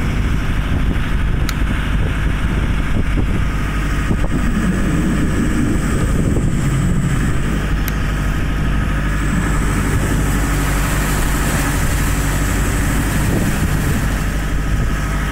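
Boat's Deutz diesel engine running steadily, with its pitch shifting a little for a few seconds partway through, over the wash of the turning propeller churning the water.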